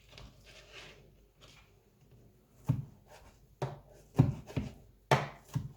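Knife cutting cooked chicken breast on a cutting board: soft slicing and scraping at first, then from about halfway a run of sharp, irregular knocks as the blade strikes the board.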